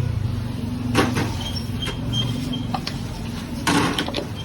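An engine running steadily in the background, with a sharp click about a second in and a short scraping rasp near the end.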